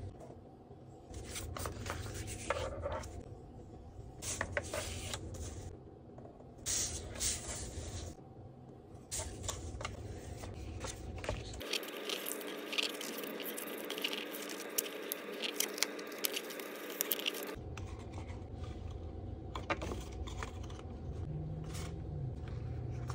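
Paper and cardstock handled on a plastic scoring board: intermittent scraping and rustling as sheets are slid, pressed and folded, with small taps. For a stretch in the middle the scratching is crisper and busier.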